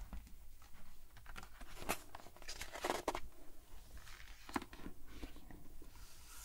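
A page of a hardcover picture book being turned by hand, a loud paper rustle about three seconds in, with a few light taps and rubs of fingers on the paper around it.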